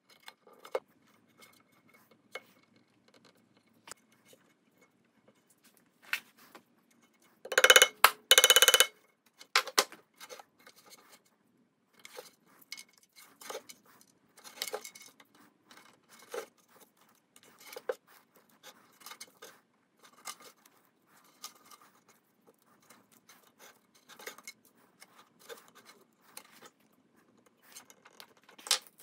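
Scattered small clicks and knocks from hands and tools working on a pandeiro's frame at a workbench. About eight seconds in there is a loud, rough burst lasting about a second and a half.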